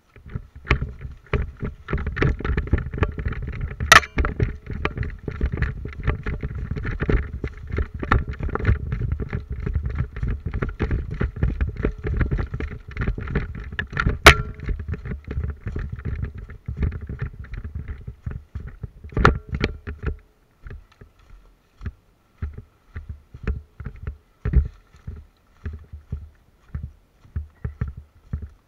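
Quick footsteps rustling through brush and dry leaves, the player moving fast, then slowing to sparser steps about 20 seconds in. There are sharp cracks about 4 and 14 seconds in, and a softer one near 19 seconds.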